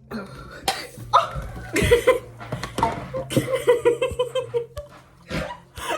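A woman laughing and squealing in quick repeated bursts, with a few sharp knocks and some hiss in the first half.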